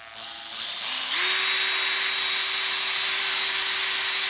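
Power drill spinning up over about the first second, then running at a steady speed with a constant whine. It is turning the crankshaft of a small wooden model V8 engine, driving the engine's rubber belt and wooden pulleys.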